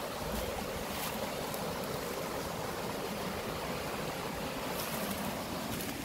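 Mountain stream rushing steadily over rocks, with a few faint clicks.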